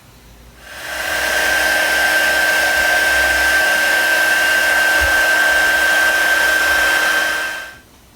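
Electric heat gun blowing steadily with a high whine, shrinking heat-shrink tubing over wiring. It switches on just under a second in and cuts off near the end.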